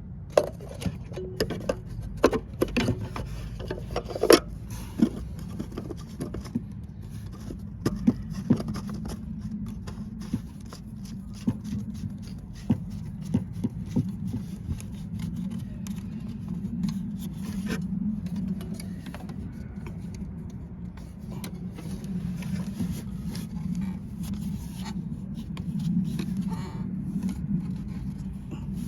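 Irregular metallic clicks, knocks and scrapes of hand tools and parts being handled while the oil filter housing is refitted, over a steady low hum.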